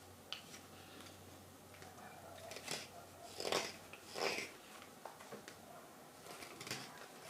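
Carving knife taking slicing cuts off a green wild cherry spoon: four separate scraping strokes, the middle two loudest.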